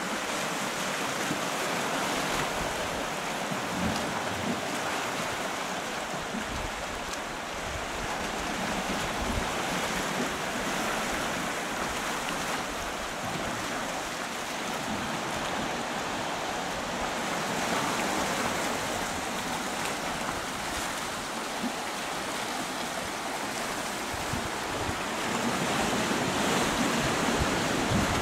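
Sea waves washing and breaking around rocks at the foot of a rocky shore: a steady surf hiss that swells and eases. Now and then wind gusts buffet the microphone with a low rumble, most strongly near the end.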